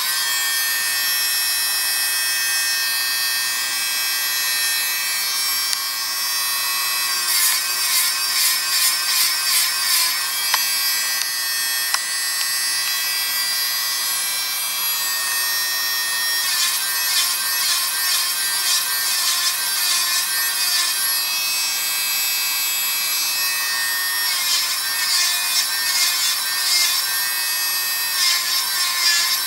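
Handheld podiatry nail drill running with a steady high whine while its cone-shaped burr smooths down toenails after cutting. Several stretches of fast, even pulsing come and go, about a quarter of the way in, past the middle and near the end.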